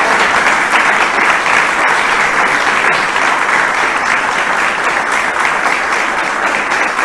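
Audience applauding, a steady round of clapping that eases off slightly toward the end.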